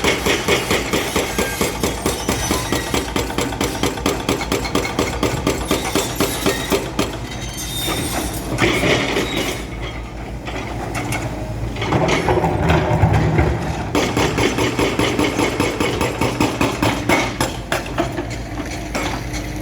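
Excavators working, with a rapid, even hammering of about five blows a second. The hammering breaks off for several seconds midway while an engine runs up loud and low, then resumes.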